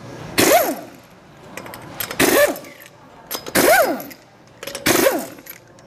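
A pneumatic impact wrench zips the lug nuts off a car wheel in four short bursts, each rising and then falling in pitch.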